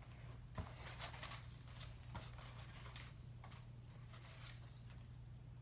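Faint, scattered rustling and soft clicks of small paper slips being stirred and handled inside a cloth baseball cap, over a steady low hum.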